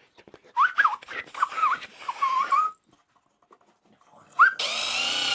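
A dog whines in several short, high cries that rise and fall. About four and a half seconds in, a power drill starts up and runs steadily.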